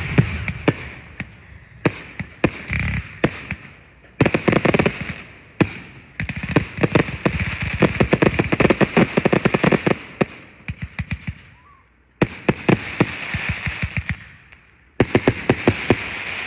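A consumer fireworks cake firing its shots: rapid sharp pops and crackling over a hiss, in several volleys with brief lulls between them.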